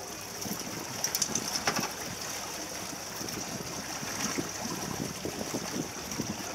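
Wind and water sounds aboard a small fishing boat at sea: a steady high hiss with irregular low rumbling, and a few light clicks from handling the line and catch about a second in.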